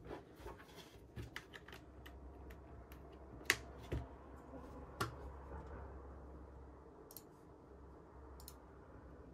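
Keys on a GMK67 keyboard with silent switches being pressed to test them, scattered soft clicks with a few louder taps about three and a half, four and five seconds in.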